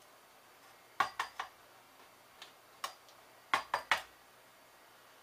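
Sharp clinks and clacks of hard objects knocking together: a hand tool and a circuit board striking a stone tile. There are three quick clacks about a second in, two more a little later, and a final group of three just before the four-second mark.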